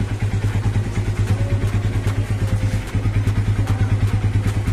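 Single-cylinder four-stroke motorcycle engine, a Honda TMX fitted with a PC27 carburetor, idling steadily with an even pulsing beat after being started without throttle. The carburetor was fitted to cure hard starting.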